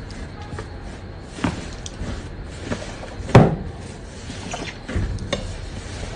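Hands pressing and squishing slime: irregular short wet clicks and pops, the loudest a sharp pop a little past the middle.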